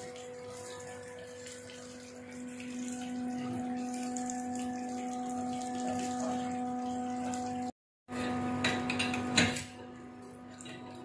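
A steady electric hum of pump-room machinery. After about 8 s, a few sharp metal clinks of steel bolts, nuts and tools knocking together.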